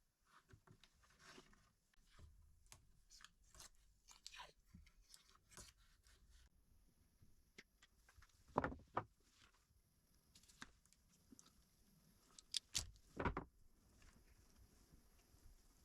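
Faint handling noises of small parts: scattered light clicks and crunchy taps, with a sharper click or two about 8.5 seconds in and a quick cluster of three near 13 seconds.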